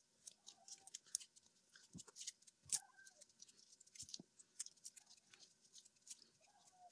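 Faint, scattered ticks and soft rubbing of self-fusing rubber tape being stretched and wound by hand around a speaker's field coil.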